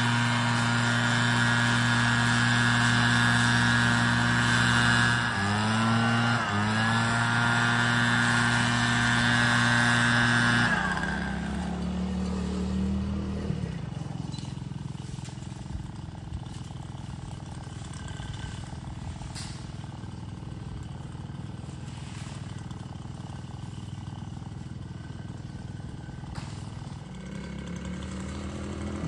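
Two-stroke gas leaf blower running at steady high throttle, dipping briefly and picking back up about five seconds in, then released to idle about ten seconds in and fading. Near the end an engine comes up again.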